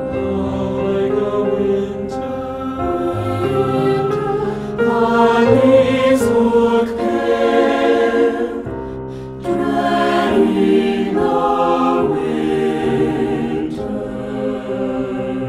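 Mixed SATB choir singing slow, sustained phrases with piano accompaniment. There is a short break about nine seconds in before the voices come back in.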